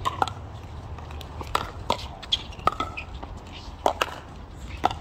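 Pickleball rally: sharp pocks of paddles striking the plastic ball, about eight hits in quick, irregular succession, some from the neighbouring court.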